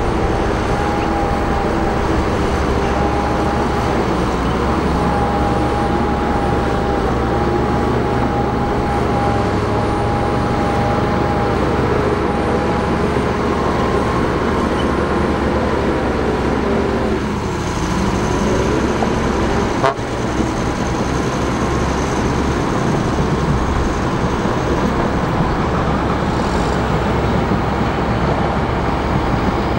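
Bulldozer's diesel engine running steadily, with a high steady whine over a dense low rumble. About two-thirds of the way through, the pitch briefly sags and recovers, and a sharp click follows soon after.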